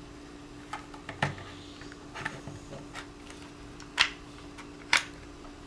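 Sporadic light clicks and knocks, about six of them and the two loudest in the second half, as the two halves of a Tippmann TPX paintball pistol's clamshell body are worked apart by hand.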